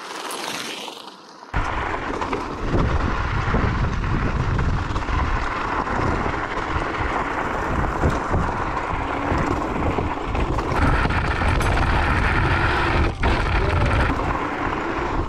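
Electric scooter riding a loose gravel trail on knobby off-road tyres: a short pass-by crunch of tyres on gravel first, then from about a second and a half in a loud, steady rumble of the tyres on gravel with wind buffeting the microphone.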